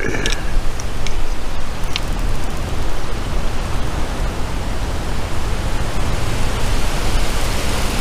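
Steady wind noise buffeting the microphone, with a heavy low rumble, and a few light clicks in the first two seconds.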